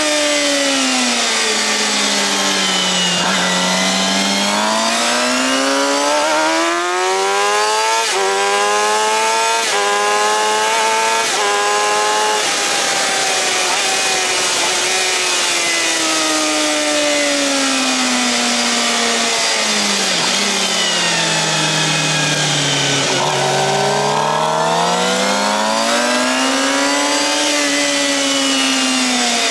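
Suzuki GSX-R750 L3's inline-four engine through a Yoshimura R-11 slip-on exhaust, ridden hard: the revs climb through several quick upshifts about a third of the way in, then fall away through a long slowing stretch, rise again and drop off near the end.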